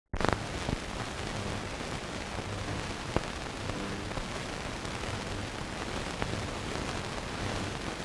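Surface noise of an old optical film soundtrack: a steady hiss and crackle with a few sharp pops, starting abruptly just after the beginning.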